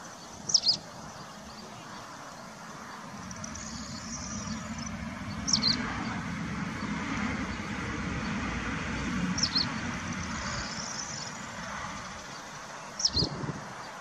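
A bird gives four short, high chirps a few seconds apart, with fainter twittering between them. Underneath runs a low rumble that swells through the middle and fades near the end.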